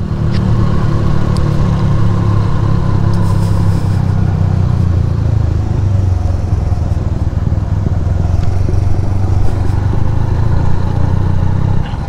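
Motorcycle engine running steadily under the rider while descending a steep, winding hill road.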